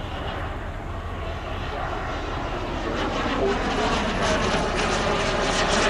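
Turbine engines of two CARF F-100 Super Sabre model jets flying overhead: a rushing jet sound with a thin high whine, growing louder and dropping slightly in pitch as they pass.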